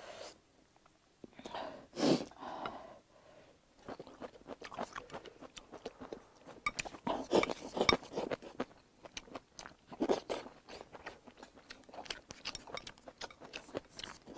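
Close-up chewing of mouthfuls of rice and noodles, with wet smacks and crunchy bites in a dense, irregular run of small clicks.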